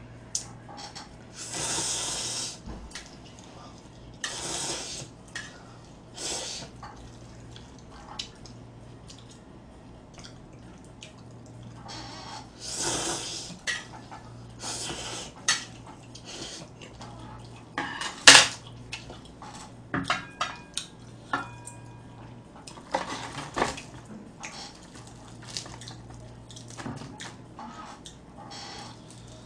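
Instant kimchi ramyeon noodles being slurped in several hissing sucking bursts, with a metal fork clicking and scraping against a thin aluminium ramyeon-pot lid used as a plate. The sharpest clink comes about two-thirds of the way through and is followed by brief ringing of the lid. A steady low hum sits underneath.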